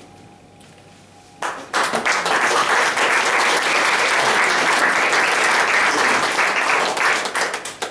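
A brief hush, then audience applause breaks out about a second and a half in: dense, steady clapping that thins out near the end.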